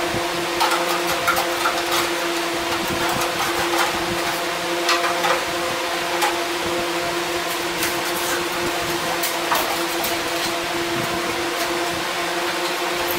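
A steady machine hum, overlaid by scattered light clicks and taps as tools and metal are handled.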